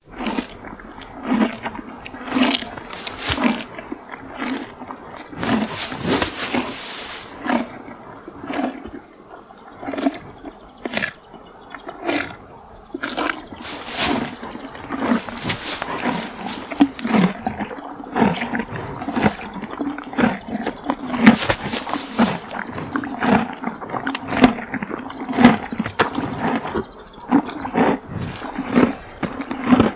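Rhinoceros vocalising in a long series of short grunts and snorts, roughly one a second, some louder than others.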